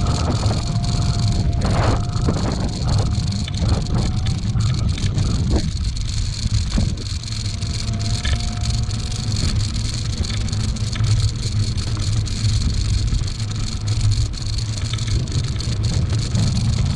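An electric kick scooter riding along an asphalt path, with a heavy steady low rumble of wind on the microphone and tyres on the pavement. Clattering rattles come over bumps in the first six seconds or so, and a thin steady whine comes and goes.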